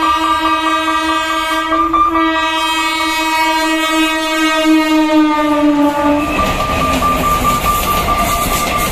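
Passenger train's horn sounding one long blast for about six seconds, its pitch dropping slightly near the end. Then the train runs past the level crossing with a loud steady rush of wheels on rails.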